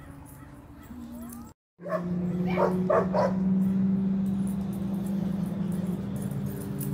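A dog barking three times in quick succession, over a steady low hum.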